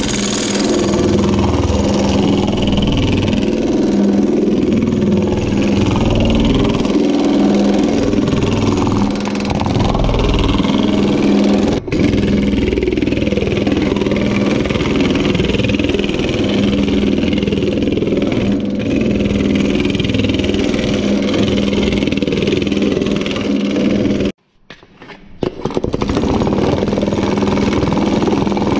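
Power hammer running steadily, rapidly hammering a sheet-metal panel over a high-crowned, nylon-topped lower die to stretch it into a dome. The hammering stops briefly near the end, then starts again.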